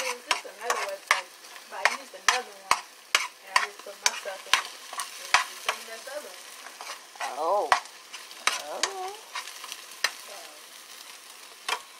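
Eggs sizzling in a frying pan while a spatula stirs and scrapes them, with sharp clicks of the spatula against the pan, about two a second at first and fewer later. There is a brief wavering squeak about halfway through.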